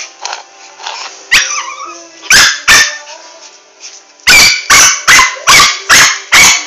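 Small dog barking repeatedly at a cat: two barks near the middle, then a steady run of about two and a half barks a second from a little after four seconds in.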